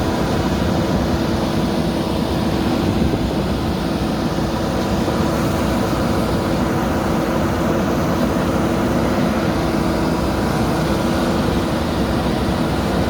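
JCB backhoe loader's diesel engine running steadily, a constant drone with a held tone.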